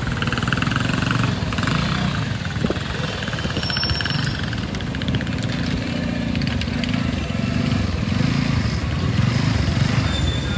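Motor vehicle engine running steadily amid street noise.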